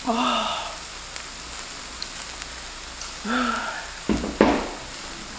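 Zucchini slices sizzling steadily on a hot griddle. Short wordless vocal sounds come just after the start and again about three seconds in, and a few sharp clicks follow near the end.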